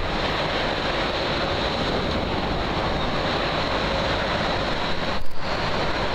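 Loud, steady din of ore processing machinery at a gold mine plant, a continuous mechanical rumble and hiss with a faint steady hum running through it.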